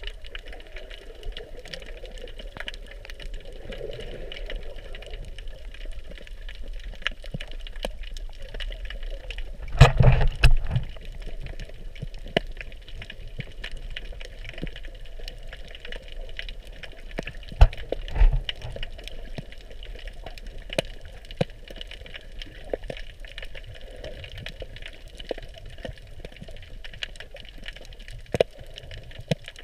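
Underwater ambience picked up by a camera in a waterproof housing: a steady muffled hiss and hum with scattered sharp clicks and crackles throughout. Heavy thumps come about ten seconds in, and again twice around eighteen seconds.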